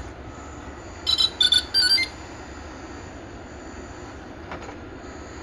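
Start-up beeps as the 3DR Solo quadcopter powers up: a quick run of three short electronic tones about a second in, over a steady low hum.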